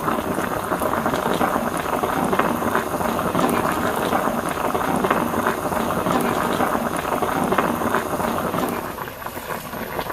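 Spicy mala hotpot broth boiling hard in the pot, a dense crackling bubble that eases off near the end.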